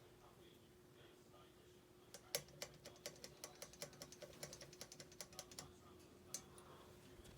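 Faint, quick run of light clicks, roughly five a second, from about two seconds in to past five seconds, with one more near the end: the Hunter ceiling fan's pull chain being worked while the speed switch is stuck on low. A faint steady hum of the fan motor runs underneath.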